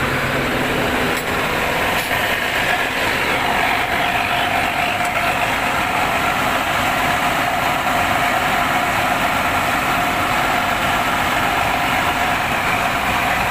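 A coach bus's rear-mounted diesel engine idling steadily, heard close up through its open engine hatch. A steady whine joins in about three seconds in.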